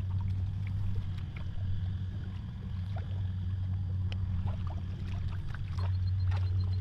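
Small splashes and sloshes of shallow muddy water as a person wades and gropes with her hands for fish, over a steady low drone.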